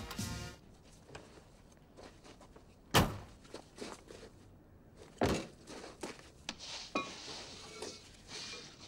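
A car door shutting with a heavy thunk about three seconds in, then a run of scattered footsteps and smaller knocks and scuffs.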